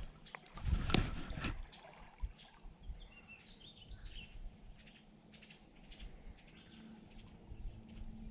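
Songbirds chirping faintly outdoors, a series of short high calls, after a brief noise burst about a second in.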